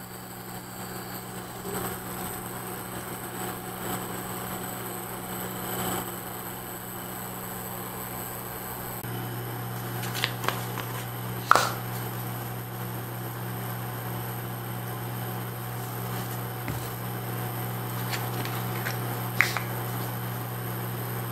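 Duxtop induction cooktop running with a steady fan hum and a faint high electrical whine, while chopped onions sizzle in oil in a frying pan. A few sharp knocks come about halfway through, and a short clatter near the end.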